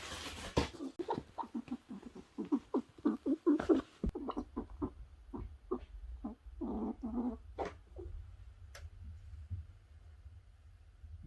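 Pet Eurasian red squirrel giving a rapid series of short calls, then a longer call in the middle and fewer calls toward the end: the alarmed calling of a squirrel frightened by a sneeze.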